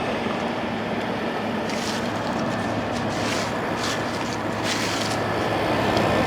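General Electric 6000 BTU window air conditioner running with its compressor on: a steady hum under a constant rush of air, the sound of a unit that is working.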